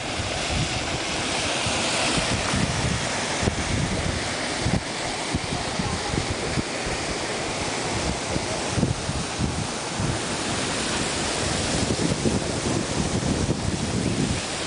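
Steady rushing of a waterfall, with wind buffeting the microphone in irregular low gusts.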